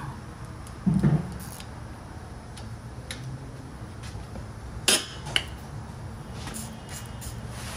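Workshop handling noise: a dull thump about a second in, then two sharp metal clinks about half a second apart, with a few faint ticks over a steady low hum.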